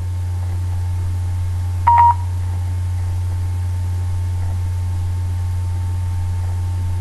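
A single short electronic beep from an HTC Desire S smartphone about two seconds in, the voice-recognition tone marking that the spoken question has been taken in. A steady low electrical hum runs underneath.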